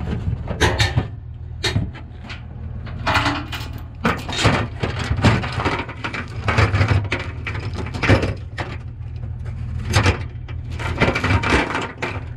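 Heavy steel chain clanking and rattling against itself and the pickup's metal bed as it is handled, in irregular knocks and jingles, over a steady low hum.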